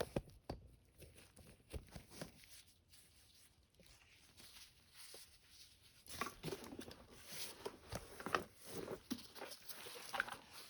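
Light handling noises: a few scattered clicks and knocks, then from about six seconds in a busier run of rustling and small knocks.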